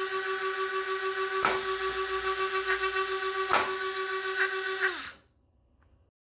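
Twin flywheel motors of a Nerf dart launcher spinning at speed with a steady high whine, broken by a few short snaps as darts are shot through, the whine dipping each time. About five seconds in the motors spin down with a falling pitch and go quiet.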